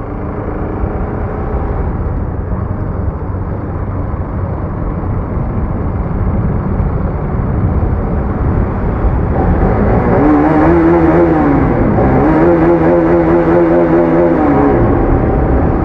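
Bajaj Pulsar RS200's single-cylinder engine, run without its silencer, on a motorcycle ridden at speed with wind noise on the microphone. About ten seconds in, the engine pitch rises and falls twice as it is revved up and backed off.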